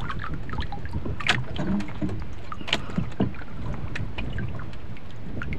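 Wind buffeting the microphone over water lapping and slapping against a small outrigger canoe's hull and bamboo floats, with scattered small splashes and a couple of sharper slaps.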